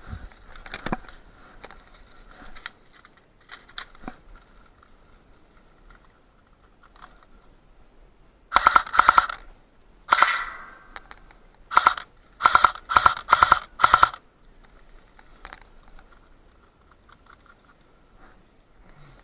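Airsoft rifle firing about eight short bursts of rapid full-auto shots over about five seconds, starting about halfway through. Before that, scattered faint clicks and rustles.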